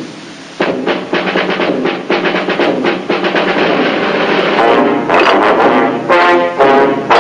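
Orchestral cartoon score: a fast run of short, clipped notes from under a second in, then, from about halfway through, loud brass phrases of held notes.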